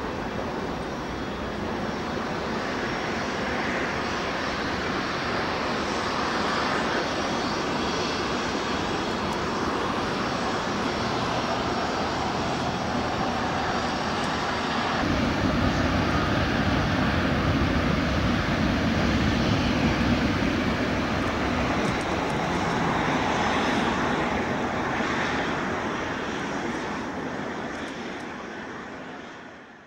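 Aircraft engines running: a steady rushing noise that gets louder about halfway through and fades away near the end.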